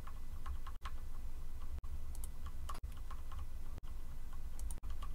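Computer keyboard being typed on: irregular light key clicks over a low steady hum.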